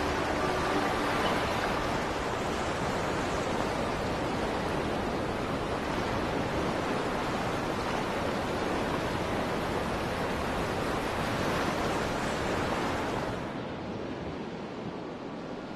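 Steady rushing sea-surf ambience. Its higher hiss falls away about thirteen seconds in, leaving a softer rush.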